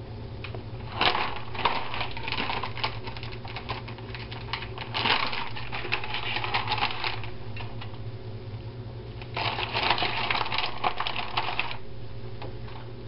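Plastic bag of shredded cheese crinkling and rustling in two spells of several seconds as handfuls are pulled out and sprinkled on a pizza. A low steady hum runs underneath.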